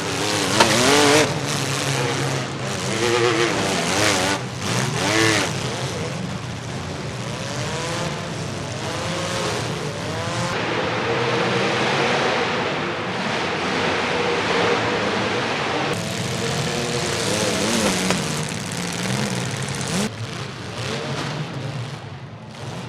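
Demolition derby cars with engines revving hard and rising and falling in pitch, and metal-on-metal crashes as they collide. The sharpest crash comes about half a second in, with more around two to five seconds.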